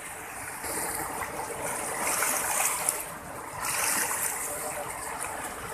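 Turbulent floodwater rushing and churning in a river below a dam's open spillway gates, a steady noisy rush that swells and eases in loudness.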